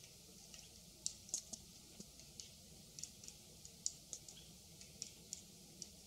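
White-backed woodpecker pecking and chiselling at a tree trunk's bark, about a dozen sharp, irregularly spaced taps, some clearly louder than others.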